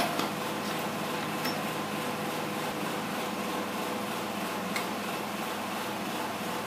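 A sharp click right at the start, then a few faint metallic ticks, as the aluminium crankcase halves of a Yamaha Y15ZR engine are pulled apart. Under it runs a steady background hum.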